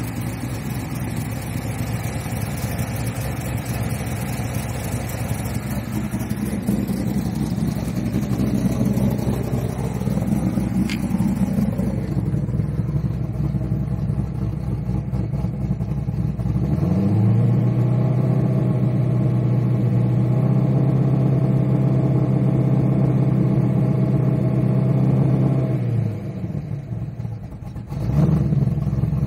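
2011 Corvette Z06's LS7 V8 with an aftermarket big cam, running after its first start of the year. It idles for the first part, then about halfway through the revs rise and hold steady for about nine seconds before dropping back to idle.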